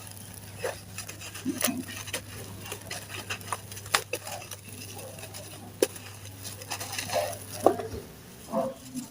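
Pieces of sand-cement slab being crumbled by hand in a tub: irregular soft crunches and gritty crackles, with a few sharper snaps.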